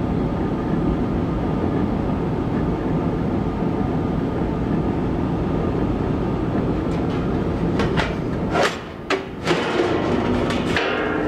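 Old gas furnace running, its belt-driven squirrel-cage blower giving a steady rumble. About eight and a half seconds in come several sharp knocks, with a brief drop in the rumble between them.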